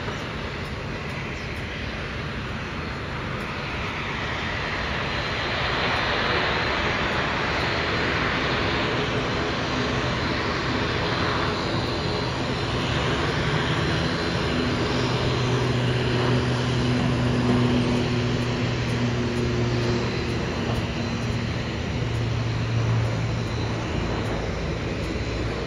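Turboprop engines of Air New Zealand ATR 72 airliners running on the airfield: a steady rushing noise with a low propeller drone. The drone grows stronger from about halfway in, as one taxis close by.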